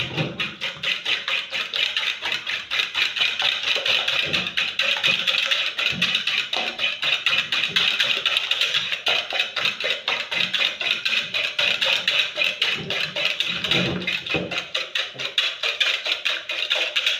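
A fork beating raw eggs by hand in a plastic bowl: a fast, steady rhythm of clicks as the tines strike the bowl.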